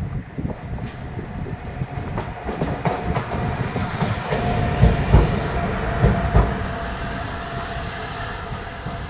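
A locomotive passes close by, running alone. Its rumble grows louder as it comes near, and its wheels clack heavily over rail joints about five and six seconds in. Then it fades as it runs away.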